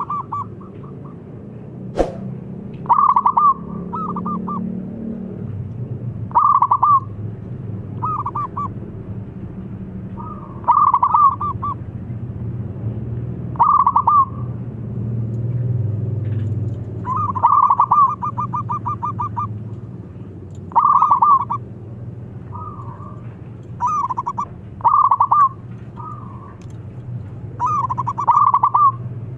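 Local zebra dove (perkutut) cooing: short bursts of rapid staccato coo notes repeated every one to three seconds, with one longer stuttering run about two-thirds of the way through. A single sharp click about two seconds in, over a low steady hum.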